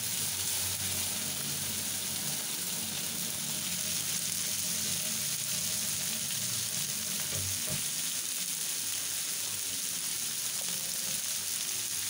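Oil sizzling steadily in a wok as yellow noodles and rice vermicelli (mee and mee hoon) fry, with one brief knock about two-thirds of the way through.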